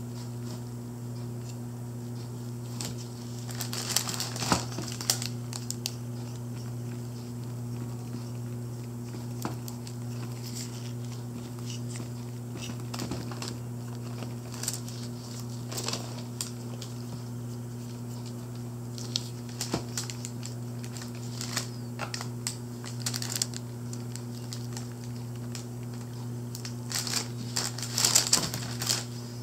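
Intermittent crinkling of paper and light clicks as a latex-gloved hand handles a small painted figurine. The rustling comes in bunches, loudest about four seconds in and near the end, over a steady low hum.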